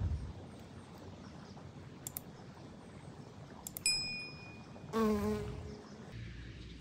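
A honeybee buzzing close by for under a second, about five seconds in: a low hum that wavers in pitch. Before it come a couple of soft clicks and, near four seconds, a bright bell-like ding from a subscribe-button animation.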